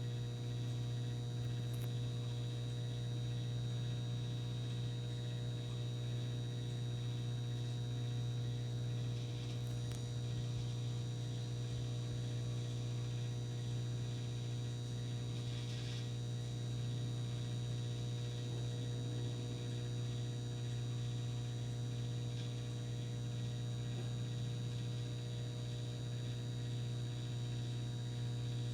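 Microwave oven running mid-cycle, a steady low hum that holds unchanged throughout.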